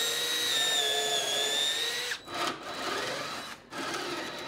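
Cordless drill boring into a pine 2x4. The motor runs at a steady whine that stops sharply about two seconds in, then it runs again more quietly and unevenly as the bit works in the hole.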